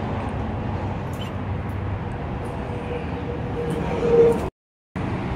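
Steady low rumble of outdoor street traffic and vehicle engines. It cuts out abruptly for about half a second near the end, then resumes.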